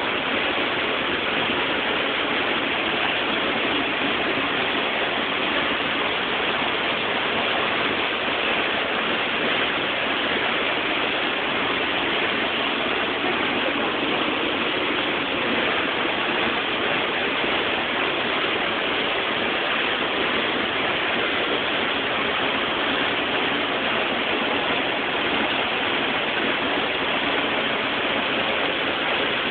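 Waterfall's steady rush of falling water plunging into its pool, heard from close up in the rock recess behind the falling curtain.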